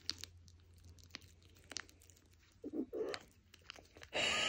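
A black kitten chewing and licking at a plastic squeeze tube of cream cat treat: faint crunching and crinkling clicks of teeth on the tube. About three seconds in come two short low growls, the kitten guarding the treat. A louder breathy rush follows near the end.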